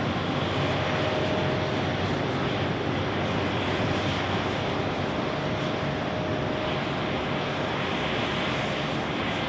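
Boeing 787-8 jet airliner's engines running steadily as it rolls out along the runway after touchdown: an even, steady noise with a faint steady whine over it.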